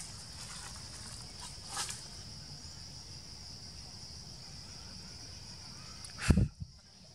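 Steady high-pitched drone of insects in the trees. About six seconds in there is one sudden loud thump, after which the drone drops away for a moment.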